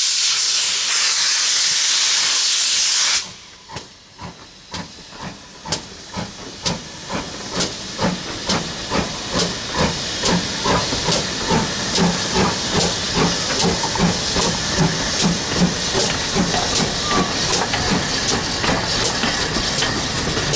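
GWR Hall class 4-6-0 steam locomotive 4930 'Hagley Hall' starting away with its train: a loud hiss of steam from its open cylinder drain cocks cuts off suddenly about three seconds in. Then its exhaust beats chuff out, growing louder and quickening to about two or three a second as it gathers speed.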